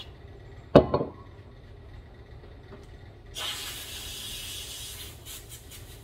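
Aerosol cleaner spray can with a straw, hissing steadily for about two seconds past the middle, blasting out a clogged carburetor jet. A sharp thump comes about a second in, the loudest sound, and a few light clicks follow the spray.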